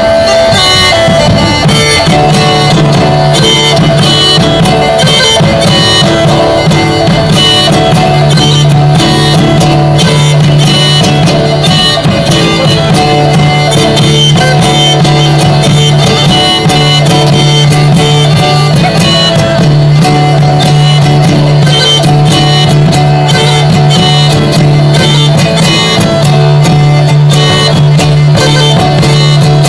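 Live medieval-style folk music: a bagpipe melody over a steady low drone, with a bowed fiddle and a large frame drum struck in a steady beat.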